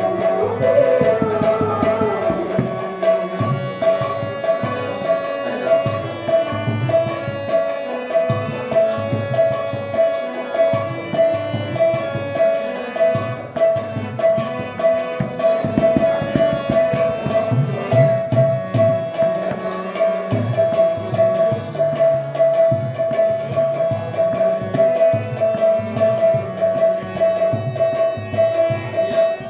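Harmonium and a hand-played two-headed barrel drum in a bhajan's instrumental passage: the harmonium holds a steady sustained tone and melody while the drum keeps a quick, busy rhythm. A woman's sung line trails off in the first two seconds.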